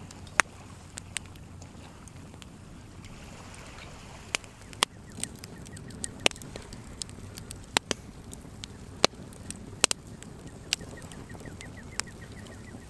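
Wood campfire crackling, with sharp irregular pops from the burning logs over a steady low background rumble.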